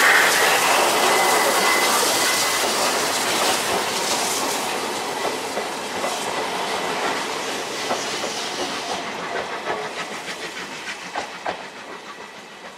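Class C10 No. 8 steam locomotive passing close with a loud hiss of steam, then its vintage Oha 35 passenger coaches rolling by, wheels clacking over the rail joints. The sound fades steadily as the train draws away, the clacks standing out more toward the end.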